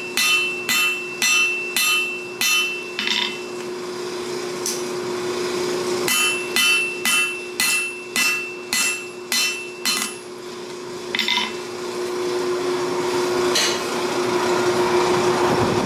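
Hand hammer striking hot steel on an anvil in two runs of quick, ringing blows, about two a second, with a few single blows between. A steady low hum runs underneath, and a rushing noise swells toward the end.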